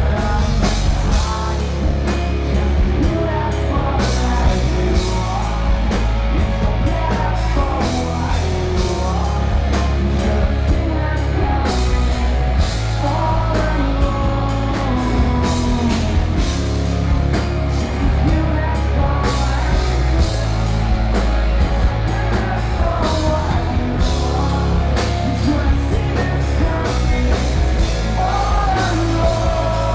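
Rock band playing live: a male lead vocal sung over guitar, bass and a drum kit, at a steady loud level throughout.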